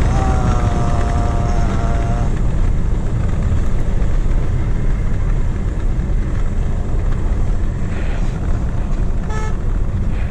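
Steady low rumble of a car's engine and road noise heard inside the cabin while driving. A car horn sounds for about two seconds at the start, its pitch sagging slightly, and a short beep comes near the end.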